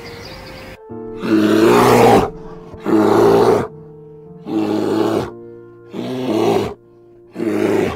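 A black bear roaring. There are five loud roars, each under a second long, about every one and a half seconds, starting about a second in. Soft background music plays under them.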